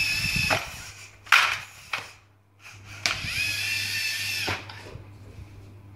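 LEGO robot's electric motors whining as it drives through its mission: one stretch of steady whine ends about half a second in, two sharp plastic clacks follow, then a second whine runs from about three seconds in to about four and a half.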